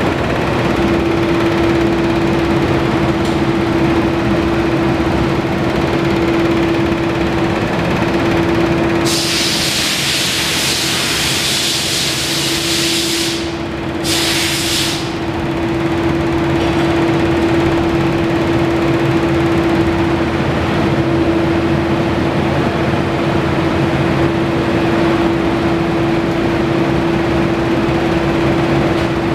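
Honda ST1300's V-four engine idling steadily, a constant even hum. A loud rushing hiss for about five seconds near the middle as the exhaust blows across the microphone behind the mufflers.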